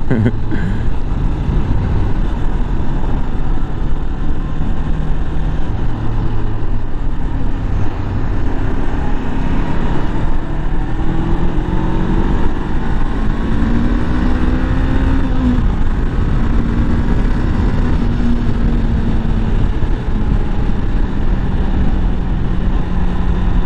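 Honda CB500F's parallel-twin engine under way, its note climbing in a few short rises as it pulls through the gears about halfway through, then holding steady. Heavy wind rush on the microphone runs under it.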